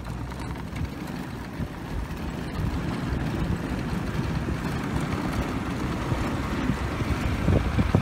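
Wind rumbling on the microphone, together with tyre and road noise from a Honda ATV being towed on a strap behind an SUV. It grows louder as the speed picks up, with stronger gusts near the end.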